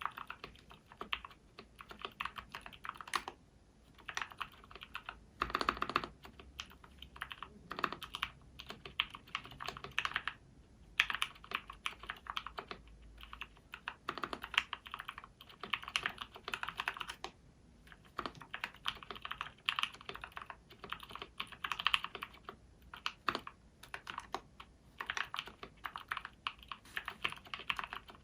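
Mechanical keyboard with SP-Star purple switches in a Tofu acrylic case being typed on: a fast, irregular run of key clicks, with brief pauses a few times.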